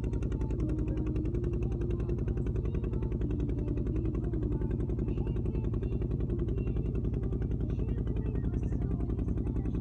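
An engine running steadily with a rapid, even throb.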